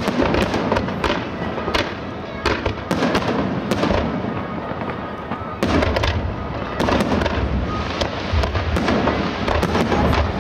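Fireworks display: aerial shells bursting one after another with crackling, many sharp bangs over a continuous rumble, the low booms growing heavier about halfway through.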